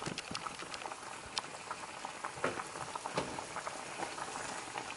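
A pot of pig feet and pig tails in vinegar water boiling on medium-high heat: a steady bubbling with many small, irregular pops.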